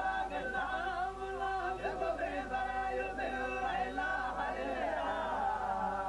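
A man's voice reciting the Quran in drawn-out melodic chant (tajweed), holding long, slightly wavering notes and gliding between them.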